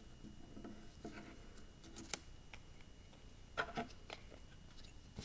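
Faint rubbing of construction paper pressed down by hand while gluing, with a glue stick being handled and a few small sharp clicks.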